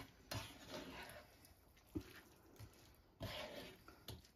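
Metal tongs tossing stir-fried noodles and bean sprouts in a frying pan: faint, intermittent rustling and scraping, with a few light clicks of the tongs, one about two seconds in and another near the end.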